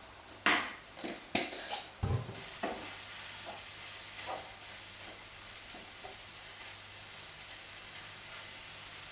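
Wooden spoon stirring and scraping minced beef in a frying pan, with several sharp knocks in the first three seconds and quieter stirring after. A low sizzle from the mince browning in oil runs underneath.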